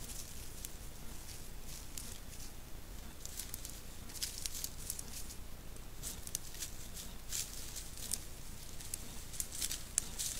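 Scattered crackling and rustling of dry grass and leaf litter under grey wolves moving close to the camera: short sharp clicks in clusters, thickest in the middle and near the end, over a steady low hiss.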